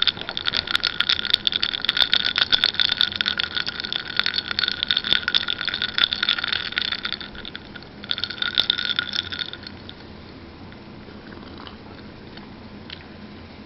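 Glass of ice water close to the microphone: a dense run of crackling and clicking. It stops about seven and a half seconds in, comes back briefly a second later, then fades to a faint fizzing.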